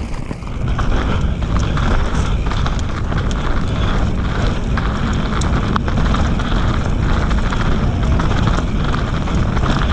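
Mountain bike descending a dirt singletrack: steady wind rush on the microphone and tyres rolling over the trail, with scattered clicks and rattles from the bike over bumps.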